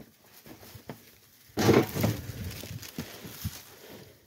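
Rustling and crunching of storm debris as someone moves through it, with a loud crunching rustle about a second and a half in, then scattered light knocks and clicks.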